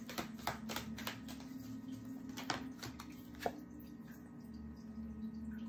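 Oracle cards being handled, a run of light clicks about three or four a second that thins out after about three seconds, over a steady low hum.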